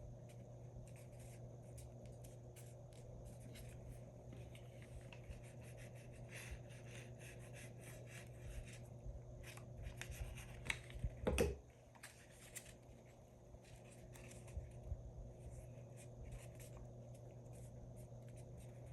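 Paper being handled, folded and creased by hand: soft rustling and rubbing with light clicks, over a steady low hum. One louder knock about eleven seconds in.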